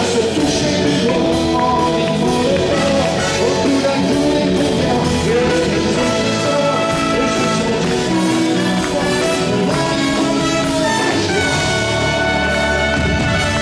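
Live pop song: a male lead singer performing with a band, a steady drum beat under sustained keyboard and instrument parts.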